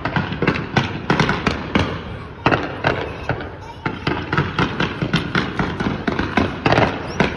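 Fireworks going off in rapid succession: a dense, uneven string of sharp bangs and pops, several a second.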